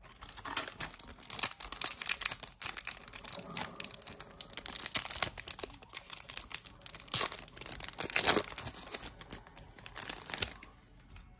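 Foil Yu-Gi-Oh booster pack wrapper being torn open and crinkled: a dense run of crackling and rustling that stops about a second before the end.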